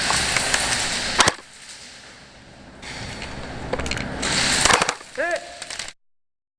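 Loud rushing noise broken by a few sharp cracks, like airsoft shots, about a second in and again near four to five seconds. A short voiced sound follows, and then the sound cuts off abruptly.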